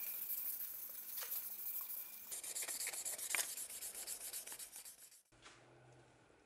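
Hand-sanding the ash-wood cleaver handle with sandpaper: rapid back-and-forth rasping strokes that stop abruptly about five seconds in.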